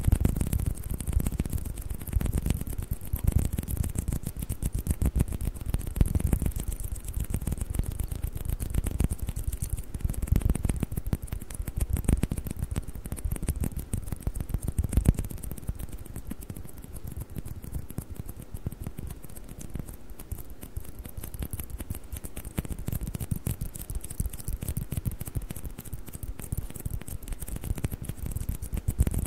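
Fast, continuous tapping on table tennis balls, a dense run of small taps with no pause, somewhat softer in the second half.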